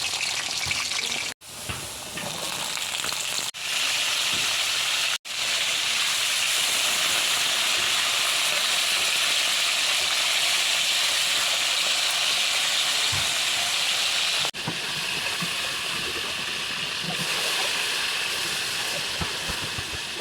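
Food sizzling in hot oil in a frying pan: a steady hiss, broken off by a few sudden cuts in the first five seconds.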